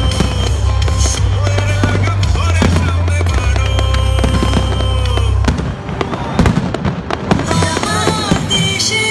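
Fireworks display: aerial shells bursting and crackling over loud music with a heavy bass. The bass drops out about five and a half seconds in, leaving sharp bangs and crackle.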